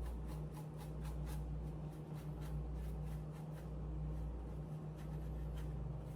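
Glazing putty being spread and scraped over a 3D-printed plastic helmet: quick, uneven scratchy strokes, several a second, over a steady low hum.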